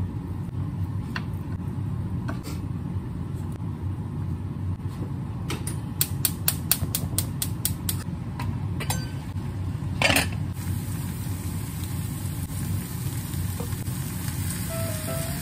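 Gas stove burner igniter clicking rapidly, about five clicks a second for a couple of seconds as the burner is lit, followed by a single sharper knock. A steady low hum runs underneath.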